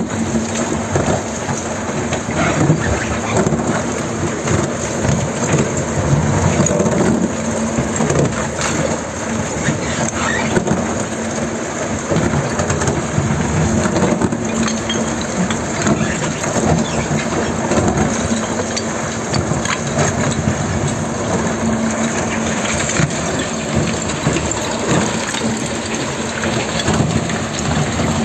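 Micro-tunnelling boring machine's rotating cutter head grinding through rock as it breaks out of the face: a steady crunching, crackling rumble over a constant mechanical hum.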